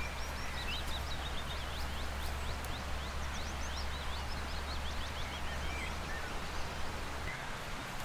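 Rushing river water as a steady wash, with a small songbird singing a quick run of high notes over it that ends about six seconds in.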